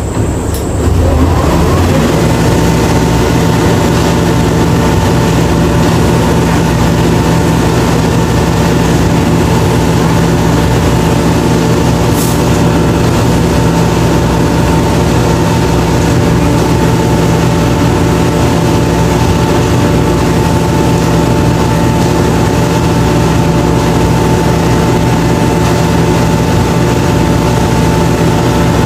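A motor vehicle's engine rises in pitch over the first couple of seconds as it picks up speed, then runs steadily with a constant drone and road noise.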